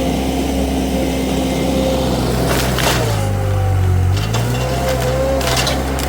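Wacker SM120 mini skid steer's engine running under load while pulling out a bush. Its pitch sags for about a second midway as it lugs, then recovers, with a few short sharp cracks.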